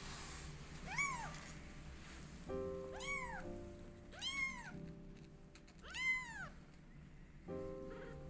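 Young tabby kitten mewing four times, a few seconds apart. Each mew is high-pitched and rises then falls. Background music plays underneath.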